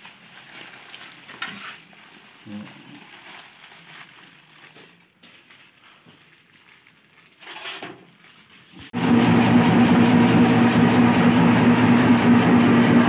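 Faint knocks and handling of dough in a stainless-steel hopper, then about nine seconds in the meatball-forming machine's 650-watt electric motor switches on suddenly and runs with a steady, much louder hum.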